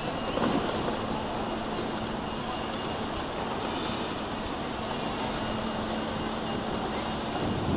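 Steady city street noise: a constant wash of traffic and passing public transport, with a faint steady hum underneath.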